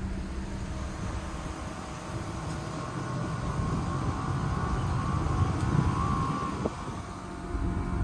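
2015 Mitsubishi Colt Plus with a 1.5 L CVT driving slowly: a steady low rumble with a faint whine that swells midway, and one short click near the end. The noise is taken to be a transmission fault, the common CVT complaint on this car.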